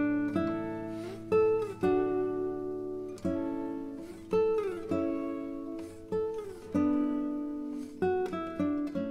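Background music: a solo guitar playing slow plucked notes and chords, each ringing and fading, with a few notes sliding down in pitch.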